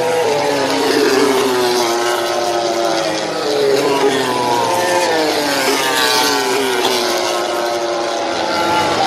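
MotoGP racing motorcycles passing at speed one after another. Their high engine notes fall in pitch several times as each bike goes by and backs off.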